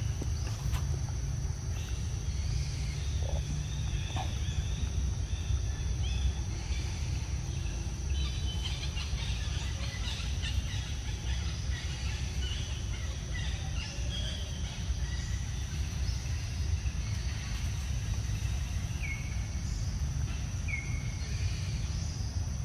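Outdoor ambience: a steady low rumble under a constant high insect drone, with birds chirping, busiest in the middle and with two short falling chirps near the end.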